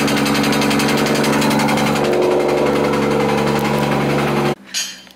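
Toyota 2JZ-GTE straight-six in a straight-piped drift car, idling steadily. It cuts off abruptly about four and a half seconds in.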